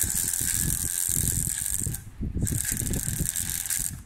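Laptop's internal speaker crackling harshly with hiss while playing music. The sound cuts out for about half a second around two seconds in, then crackles again. It is a fault that the owner cannot yet place between the software and the speaker itself.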